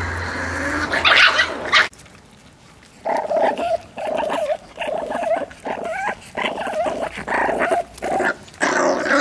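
Miniature pinscher puppies growling over raw meat: from about three seconds in, a run of short, high-pitched puppy growls, roughly two a second. This is food-guarding, as the puppies compete for the meat.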